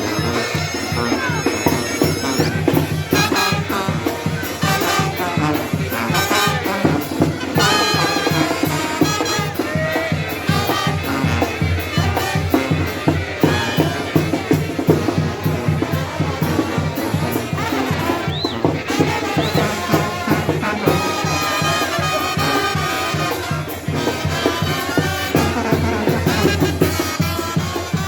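Live band music with brass and drums playing a lively, steady beat.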